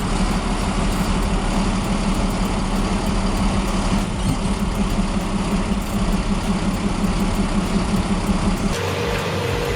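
Large tracked heavy machine's engine running steadily with a constant low hum. Near the end the sound changes abruptly to a different machine carrying a thin steady tone.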